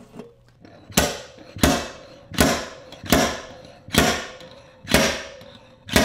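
Slide hammer dent puller hooked to a pull stud welded onto the 2020 Toyota Supra's creased sheet-metal body panel, slammed back against its stop again and again to pull the dent out. About seven sharp metallic knocks, roughly one every 0.8 s, each with a short ring.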